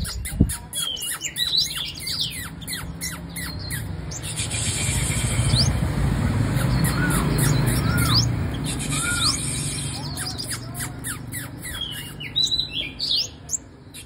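Caged female sunbird singing: quick runs of high, thin, down-slurred chirps, a few arched notes in the middle, and another fast run near the end. A low rumble in the background swells in the middle.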